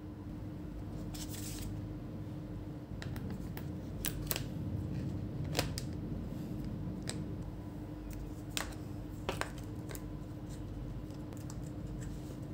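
Scattered sharp clicks and taps of plastic and metal as a replacement laptop battery is set into an Asus Zenbook UX303 chassis and pressed down into place, over a steady low hum.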